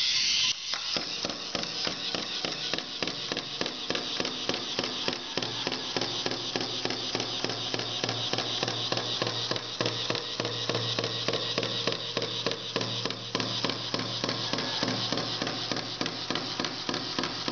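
K'nex Stomper microbot walking on a tabletop: its small battery motor hums while its plastic legs and feet tap and clatter on the table in a fast, even rhythm.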